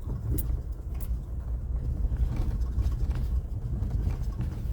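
A vehicle driving slowly over a rough field: steady low engine and road rumble, with a few light knocks and rattles.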